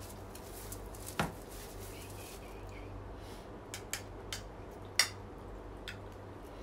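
Scattered sharp clicks and clacks of seafood shells (crab, shrimp and mussel) being handled and set down on the table as they are eaten by hand, the loudest about five seconds in, over a low steady hum.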